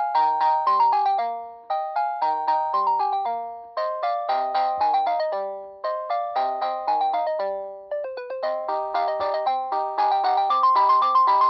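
GreenLyca GL70281 telephone playing a polyphonic melody ringtone: short chiming notes in chords, each dying away quickly, in phrases that repeat about every two seconds.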